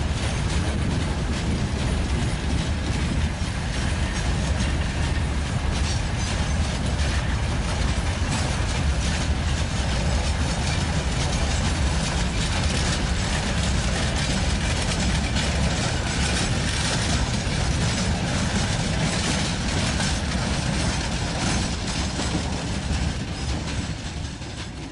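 Freight wagons of a broad-gauge train rolling past, a steady low rumble with wheels clicking over the rail joints. The sound eases off near the end as the last wagon goes by.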